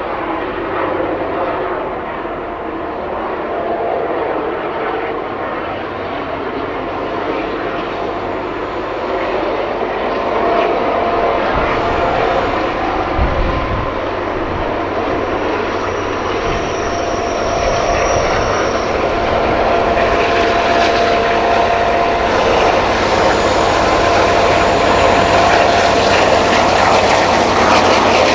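Class 241 'Ludmilla' diesel locomotives working at full power under a very heavy freight load, their engines giving a steady hissing roar that grows louder toward the end as they come closer.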